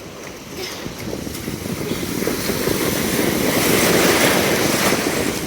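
Ocean surf washing in, with wind buffeting the microphone; the rush swells steadily louder to a peak about four seconds in.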